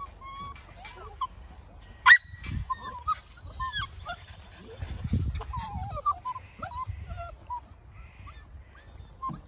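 A litter of black puppies whimpering and yipping, with many short high whines overlapping. There is a sharp knock about two seconds in.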